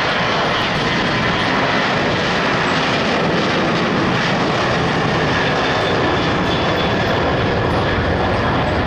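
Boeing 737 jet airliner's engines at takeoff power on the takeoff roll: a steady, even roar with a faint high whine over it.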